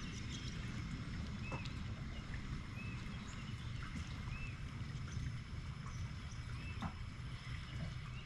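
Steady low rumble of wind on the microphone with faint scattered clicks, and a short high chirp that recurs every second or two.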